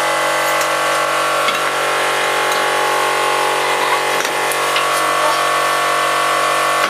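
A machine's motor running with a steady, unchanging hum, with a few faint knocks from work on the car's wheel.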